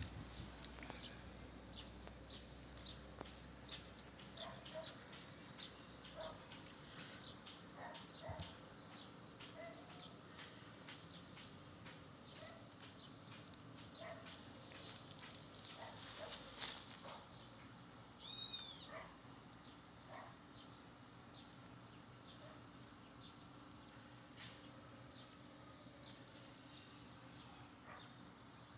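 Faint birdsong from small birds: many short, high chirps, with one louder call of rising-and-falling notes about two-thirds of the way in.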